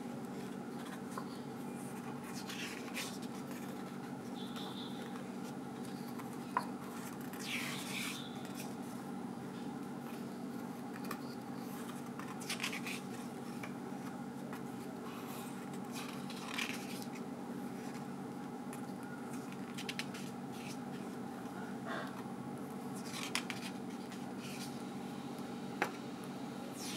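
Art-paper pages of a thread-bound zine being turned and brushed by hand: short soft rustles every few seconds over a steady low hum.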